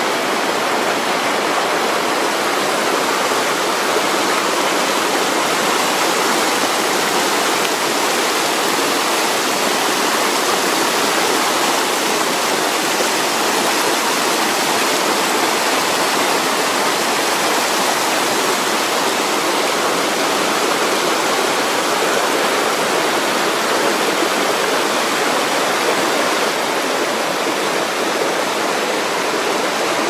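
Shallow mountain stream rushing over rocks in small cascades: a steady, unbroken rush of water.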